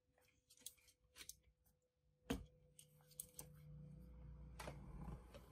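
Faint handling sounds: scattered light clicks, a sharper click a little over two seconds in, then a low hum for about three seconds.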